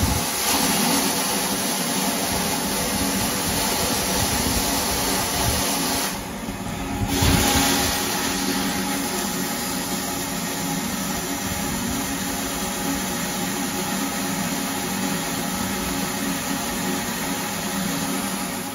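Wet-and-dry vacuum cleaner running steadily, its nozzle sucking water out of a steel bilge; the sound dips briefly about six seconds in, then comes back up.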